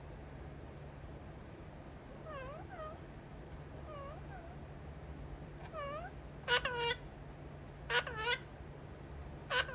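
Pet parrot giving a run of short meow-like calls, each dipping then rising in pitch, faint at first and then louder, in pairs about six and a half, eight and nine and a half seconds in.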